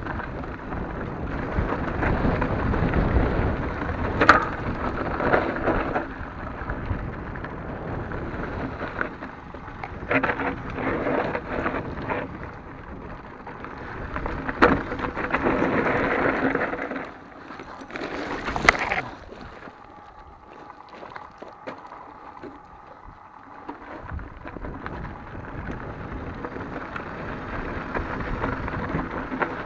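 Santa Cruz Hightower mountain bike riding down a dry, rocky dirt trail: tyres crunching and rolling over gravel and stones, with sharp knocks and rattles from the bike as it hits bumps. The rolling noise eases off for several seconds past the middle, then builds again.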